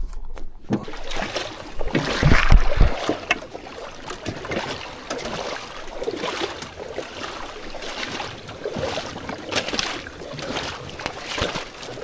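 Marsh grass and reeds scraping and brushing along a jon boat's hull as the boat pushes through a shallow, overgrown channel. There are heavy knocks and thumps on the boat in the first few seconds.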